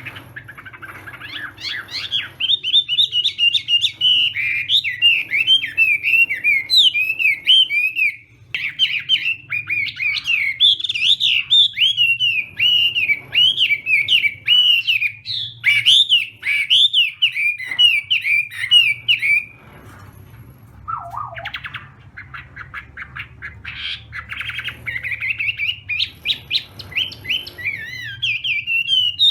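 Hwamei (Chinese laughingthrush) singing a long, fast run of varied whistled notes. It pauses briefly about twenty seconds in, then resumes with a lower sliding note and a quick string of repeated notes. A faint steady low hum lies underneath.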